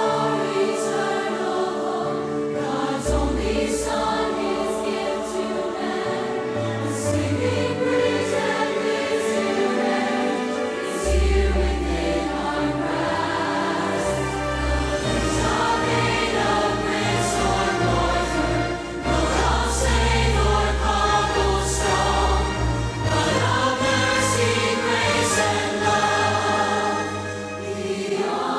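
Choir singing a Christmas song with instrumental accompaniment, over a low bass line of long held notes that change every few seconds.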